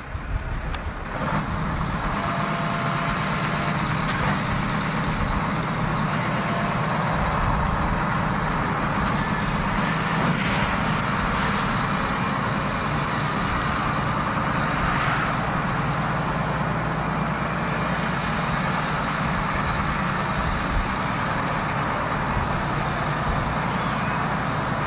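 Large farm tractor's engine running steadily, an even unchanging drone, starting about a second in after a brief break in the recording.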